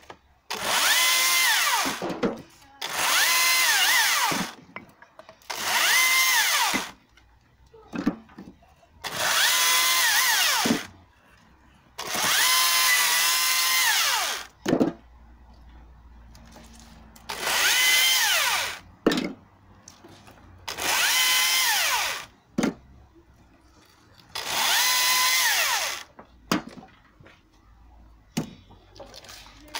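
Husqvarna T536Li XP cordless battery chainsaw cutting thin branches into firewood: eight short cuts, each a high electric motor whine that rises as the trigger is pulled, dips in pitch as the chain bites into the wood, and stops. A short knock follows most of the cuts.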